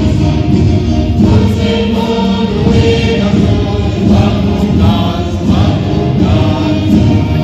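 Music with a group of voices singing together, choir-like, running on without a break.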